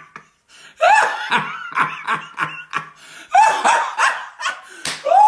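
A man laughing heartily, in two long runs of quick, high-pitched bursts: the first about a second in, the second about three and a half seconds in.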